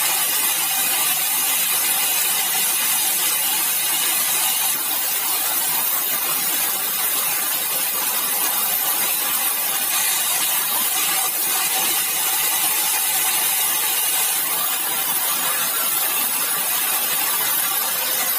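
Sawmill saw machinery running steadily, a continuous hissing machine noise with faint steady tones in it.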